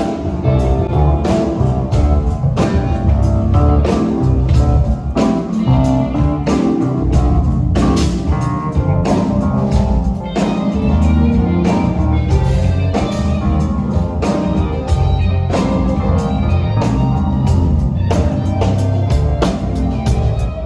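Rock band playing loudly: electric guitar over bass and a drum kit keeping a steady beat.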